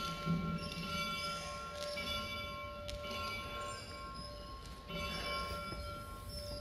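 Small chapel bell ringing, its strikes overlapping into a steady, held ringing of several tones.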